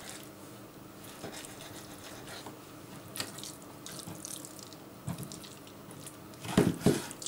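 Kitchen knife slicing through a raw bream fillet on a wooden cutting board: faint wet cutting and scraping of flesh and rib bones, with a few louder knocks of the knife and fish on the board near the end.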